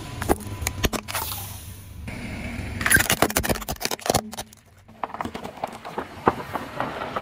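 Car tyre rolling over and crushing small objects, a can of shaving foam and soft squishy toys: a run of crackles, pops and squelches, with a loud noisy burst about three seconds in.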